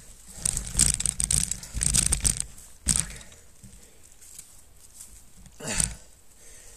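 Mountain bike clattering over roots and rocks: a quick run of rattles and knocks in the first couple of seconds, a sharp knock about three seconds in, then quieter rolling, with one more loud burst near the end.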